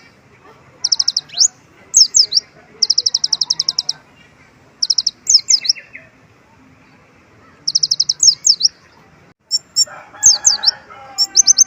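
Kolibri ninja sunbird singing in repeated phrases. Short, very fast high trills alternate with quick down-slurred notes, a song stuffed with mimicked white-eye (pleci) calls.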